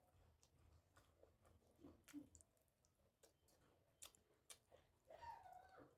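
Faint close-up eating sounds: a person chewing, with scattered soft wet mouth clicks, and a short pitched sound near the end.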